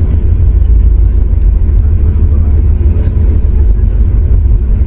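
Cabin noise of a Boeing 737 MAX 8-200 airliner: a loud, steady low rumble with light rattling clicks from the cabin.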